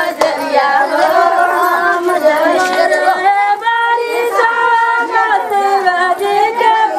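Group of women singing together without instruments, several voices overlapping.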